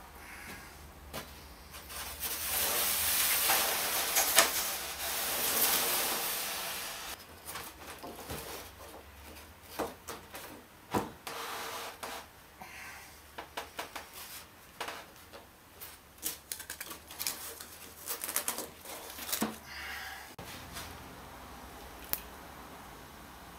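Workshop handling sounds: a few seconds of rough rubbing noise that swells twice, then scattered light clicks and knocks.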